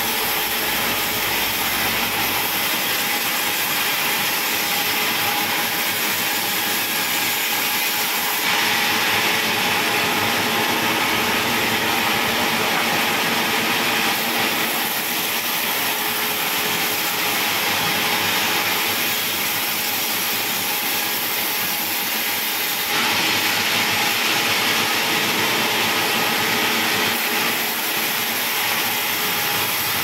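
A sawmill's log band saw running steadily, a loud hissing machine noise, with two louder stretches of several seconds, about a third of the way in and again near the end.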